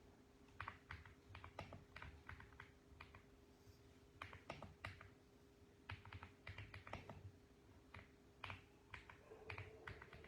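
Mechanical keyboard typing in short bursts of quick keystrokes broken by pauses of about a second, over a faint steady hum.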